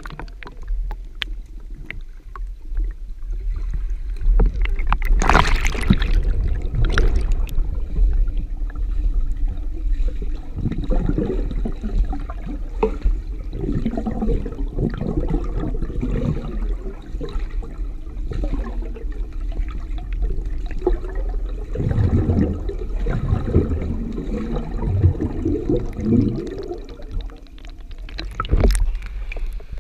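Muffled pool water heard through a submerged camera: a steady low rumble with irregular sloshing and gurgling as a swimmer moves around it. A sharper, louder splash-like noise comes about five seconds in and again near the end.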